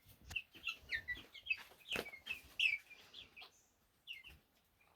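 A brood of young chickens peeping: many short, high calls, several falling in pitch, overlapping irregularly, with one sharp knock about two seconds in.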